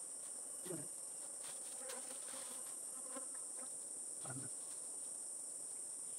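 Insects shrilling in a steady high-pitched chorus, with bees buzzing around their opened nest in a tree hollow during a honey harvest. Two brief low sounds come about a second and about four and a half seconds in.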